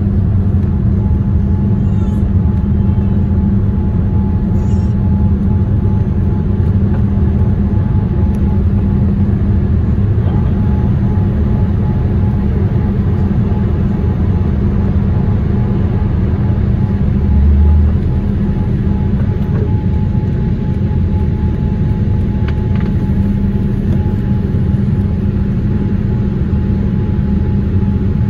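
Steady cabin roar of a Boeing 787 in its climb after takeoff, engine and airflow noise heard from a window seat over the wing, with a steady low hum and a fainter higher tone running through it. A brief low thump comes about two-thirds of the way through.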